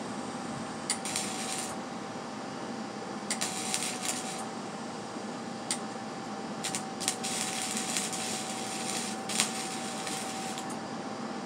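Electric arc welding on a steel go-kart frame: the arc crackles and sizzles in several bursts of one to three seconds, starting and stopping with sharp pops, over a steady hum. The welder afterwards calls this weld horrible.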